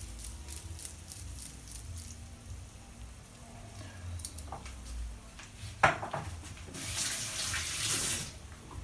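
Faint wet clicks of hands rolling minced-meat meatballs, a sharp knock a little before six seconds in, then about a second and a half of running water.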